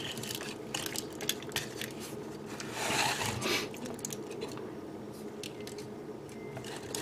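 Hard plastic parts of a Gunpla model kit clicking and rubbing as they are handled and repositioned by hand: a scattering of small sharp clicks, with a brief rubbing sound about three seconds in.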